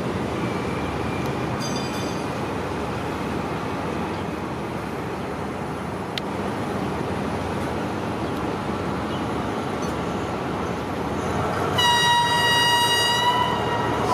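Alsthom diesel-electric locomotive running past with passenger coaches: a steady engine and rail rumble. Near the end the locomotive's horn sounds one loud, steady blast of about two seconds.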